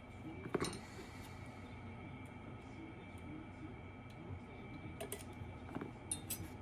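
Lock pick working the pins of a BKS Janus 13-pin lock cylinder: scattered small metallic clicks and scrapes, the loudest about half a second in and a few more near the end.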